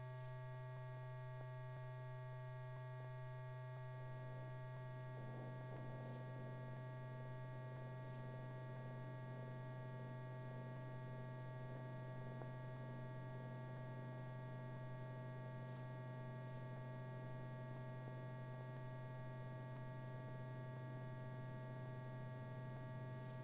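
Steady low electrical hum with a stack of fainter, higher steady tones above it, unchanging throughout, plus a few faint ticks.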